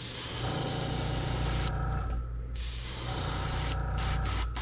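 Airbrush spraying paint: a hiss of about a second and a half, a short stop, another hiss of about a second, then a few quick short puffs near the end. A steady low hum runs underneath.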